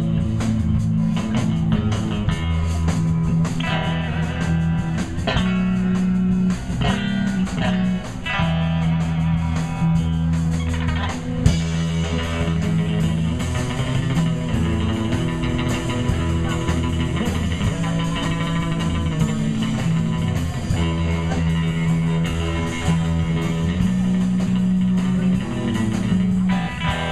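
Band playing blues-rock, with electric guitar over a bass line.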